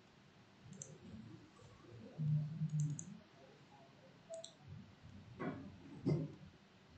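Computer mouse buttons clicking: a single click, then two quick pairs of clicks, with a brief low hum in between and a couple of soft thumps near the end.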